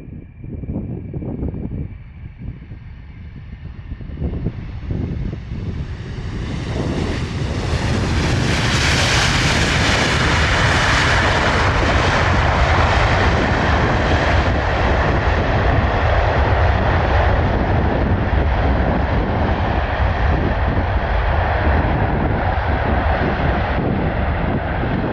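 Jet airliner coming in to land. Its engine whine and rumble grow over the first several seconds into a loud, steady roar as it passes close by, and the sound cuts off suddenly at the very end.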